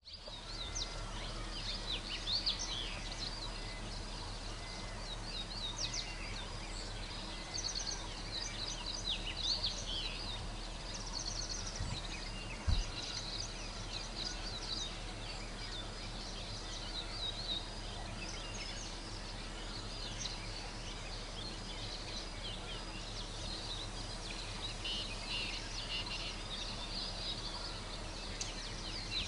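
Many small birds chirping and trilling, with quick repeated notes, over a steady low hum. A single dull low thump comes about halfway through.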